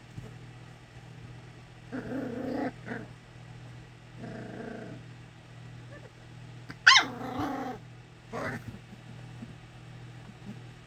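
English springer spaniel puppies growling and yipping at each other in play, in four short bouts, with a sharp high yelp about seven seconds in, the loudest sound.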